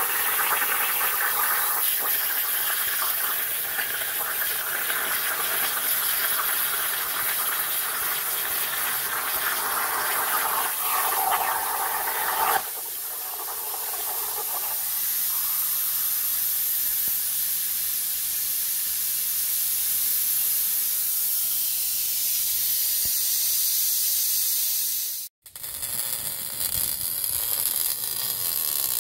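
CNC plasma cutter cutting steel plate: a loud, steady hiss from the torch arc. About twelve seconds in the cut stops and the sound drops suddenly to a softer, higher hiss that slowly fades. Near the end, after an abrupt break, welding on the exhaust pipe gives a steady noisy crackle.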